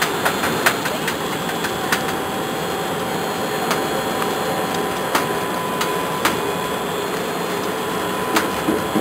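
Snack-cutting machine for Mad Angles-shaped snacks running: a steady mechanical whir with irregular sharp clicks every second or so.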